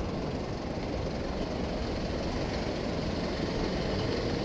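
Steady road noise from a motorcycle riding along slowly: a low rumble of engine, tyre and wind noise on the rider's camera, with no distinct revs or sudden sounds.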